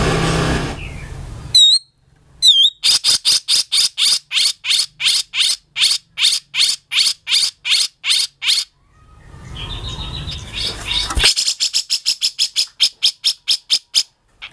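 Cucak jenggot (grey-cheeked bulbul) singing in its harsh, rough style. A raspy noisy call is followed by two short down-slurred whistles, then a long run of sharp repeated notes about three or four a second. A second raspy stretch leads into a faster run of notes near the end.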